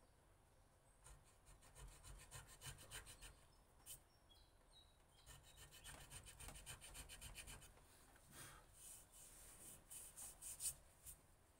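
A pointed steel hand tool scratching and pricking a non-slip texture into a wooden knife handle, in quick short strokes. The strokes come in two runs, with a few louder scrapes near the end.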